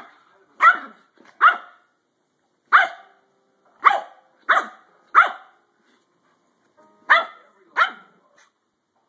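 Shih tzu barking sharply, about eight short barks in uneven bunches, at a hand reaching to touch her; she doesn't want to be touched.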